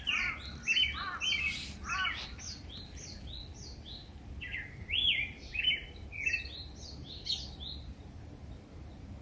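A bird singing: runs of quick, swooping whistled notes, about three a second, with a pause about two seconds in, over a low steady background rumble.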